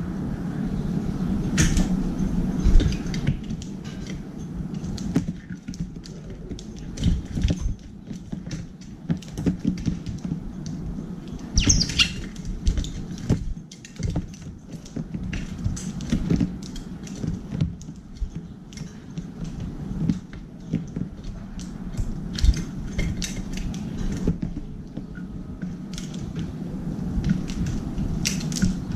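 Eurasian tree sparrows pecking sunflower seeds from a stainless steel tray: quick, irregular taps and clicks of beaks on metal and seed, with a short bird call about twelve seconds in.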